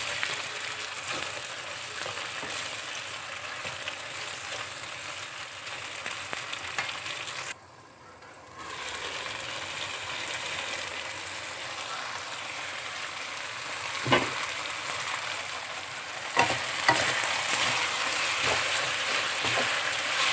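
Sliced chicken, carrots and broccoli sizzling in a pan over high heat, stirred with a spatula that knocks against the pan. The sizzle drops out for about a second a third of the way through, and grows louder after a couple of knocks near the end.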